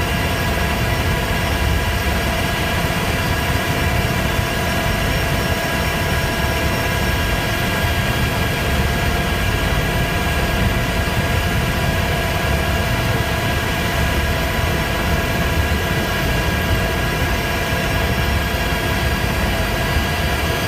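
UH-60 Black Hawk helicopter hovering, its twin turboshaft engines giving a steady whine of several tones over a low rotor rumble.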